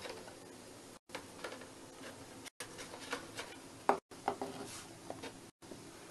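A hamster scrabbling about in a cardboard box: faint rustles and light scratches over room noise, with a sharper knock about four seconds in.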